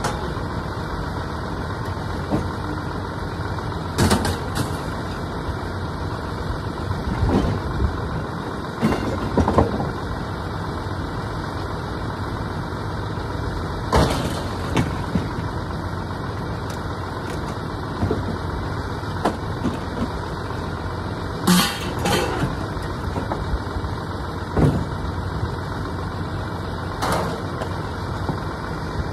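A vehicle engine idling steadily, with sharp clanks of scrap metal being handled every few seconds.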